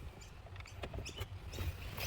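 Light clicks, taps and squeaky rubbing from hands working plastic sunroof trim and its rubber seal into place. The sounds come more often in the second half, over a low steady hum.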